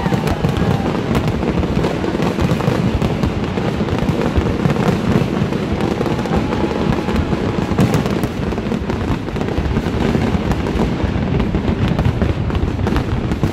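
Fireworks display going off in a dense, continuous barrage of overlapping bangs and crackling, with a steady low rumble underneath.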